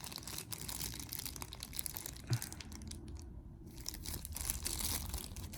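Packaging crinkling and rustling as it is handled and opened, with many small clicks, easing briefly about three seconds in.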